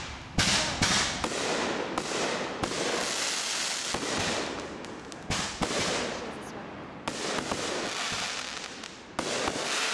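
Consumer aerial fireworks bursting overhead: a run of sharp bangs, several close together in the first few seconds and more later, with a crackling hiss from the burning stars between them.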